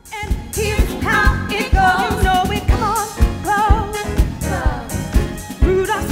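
Women singing a pop number with a live band, held notes wavering over a steady drum beat of about two beats a second.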